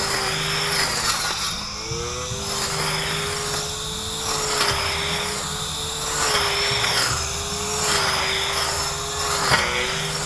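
Cordless battery grass trimmer (a Makita replica) with a circular cutting blade, its motor running with a steady whine that sags slightly under load, and a swish each time the spinning head sweeps through thick grass, every second or two. A sharp tick near the end.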